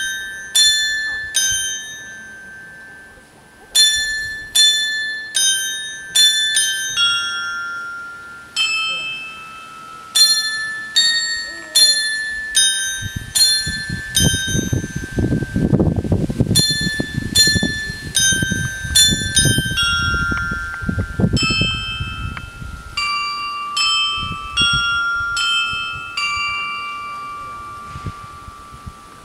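A musical clock's chime of small hanging bells playing a slow tune, one struck note at a time, each ringing out and fading. Partway through, a low rumble passes underneath.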